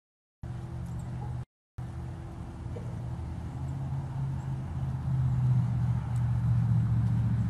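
Low, steady engine hum of a motor vehicle, growing louder over the last few seconds. The sound cuts out completely twice, briefly, in the first two seconds.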